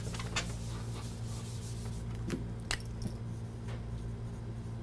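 Whiteboard eraser rubbing and a dry-erase marker writing on a whiteboard: faint rubbing with a few light taps, over a steady low hum.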